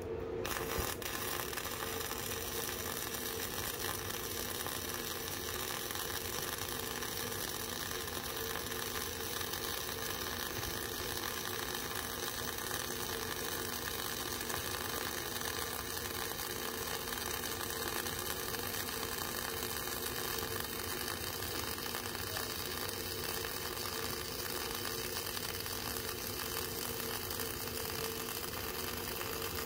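Flux-cored arc welding with self-shielded E71T-8 (NR-232) wire: a steady, even crackle of the arc that runs without a break.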